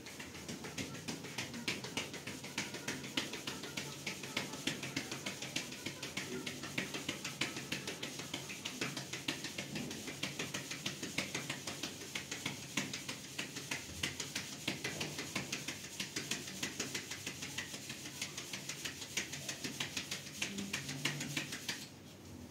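A fast, steady run of sharp knocks or taps, several a second, that stops near the end.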